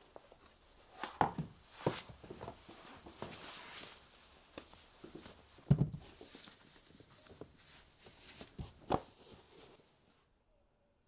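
Scattered soft knocks and rustles of high-heeled shoes being taken off on a carpeted staircase. The loudest is a dull thud a little over halfway through, as a shoe is handled.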